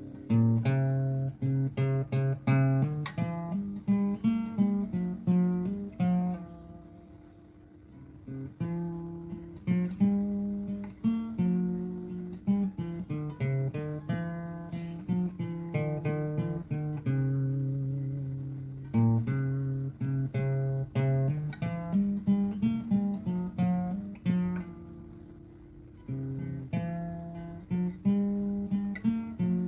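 Background music: acoustic guitar picking a melody of plucked notes in repeating phrases, with two brief dips in loudness.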